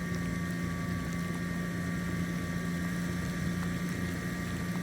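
Portable generator engine running at a steady hum, with a few faint ticks over it.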